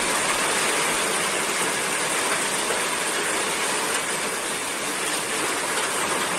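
Torrential rain pouring down, a steady dense hiss.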